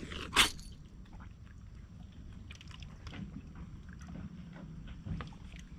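Low rumbling of calm seawater lapping against a stone harbour edge, with one short, sharp, loud noise about half a second in and a few faint clicks later on.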